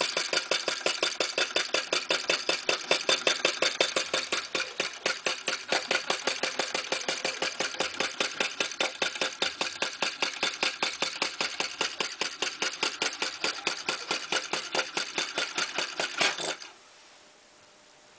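Model fire eater (flame-licker) engine running fast, giving a rapid, even clicking clatter that stops abruptly near the end.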